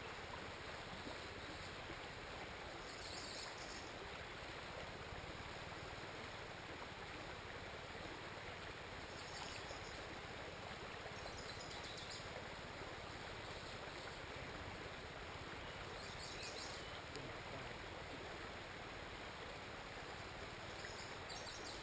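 Creek water running steadily, a soft even rush, with a few brief high chirps now and then.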